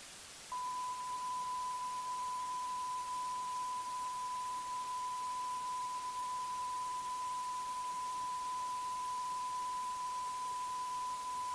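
A steady, unwavering 1 kHz electronic test tone over videotape hiss, switching on about half a second in.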